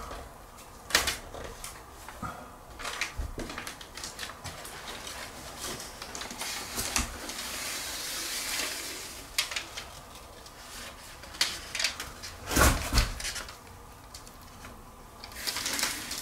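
Foil vapour-barrier tape being peeled off its roll and handled: crinkling and rustling, with a longer rasping peel near the middle and scattered clicks and knocks, a few louder ones toward the end.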